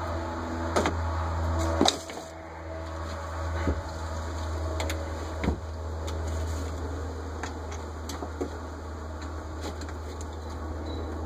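Light clicks and knocks as the parts of a Rochester Quadrajet carburetor are handled and set down, a few scattered strikes with the loudest about two seconds in, over a steady low hum.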